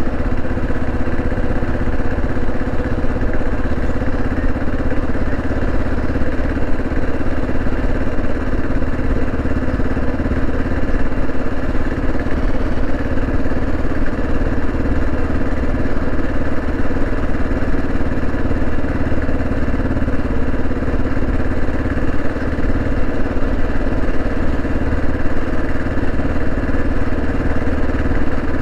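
Kawasaki KLR 650 motorcycle's single-cylinder four-stroke engine running at a steady, even speed, with no revving or gear changes.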